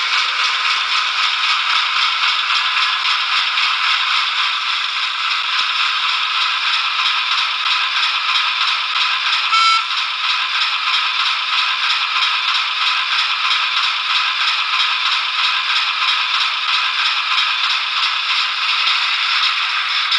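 Hornby class 08 diesel shunter model's DCC sound decoder playing the shunter's diesel engine sound through the model's tiny speaker. The sound is steady, thin and clattery, with no bass. A brief high-pitched tone sounds just under ten seconds in.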